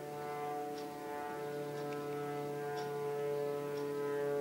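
Steady droning, horn-like tones: several pitches held together that shift every second or so. A faint tick sounds about once a second, like a clock.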